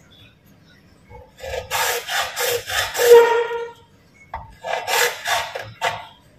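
A hand tool rasping back and forth on PVC pipe, in two runs of quick strokes: the first starts about a second in and lasts a couple of seconds, the second comes near the end.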